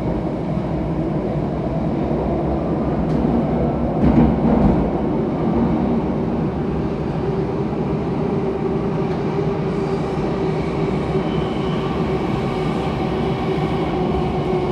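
Cabin noise of a Bombardier C951 Downtown Line metro train running through a tunnel: a steady rumble of wheels and running gear, with a louder knock about four seconds in. A steady pitched hum comes in from about seven seconds.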